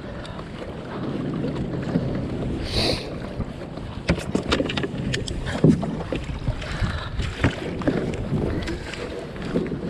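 Water sloshing and splashing around a kayak, with wind on the microphone and irregular knocks and splashes through the second half.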